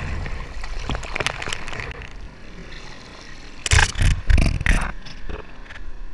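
Water sloshing and splashing against a helmet-mounted GoPro's housing while a bodyboarder paddles, with a few loud splashes hitting the camera about four seconds in.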